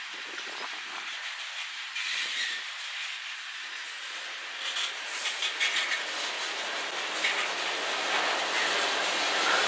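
Freight cars of a passing manifest train rolling by: a steady hiss of steel wheels on rail, with a run of clicks from the wheels over rail joints about five to six seconds in.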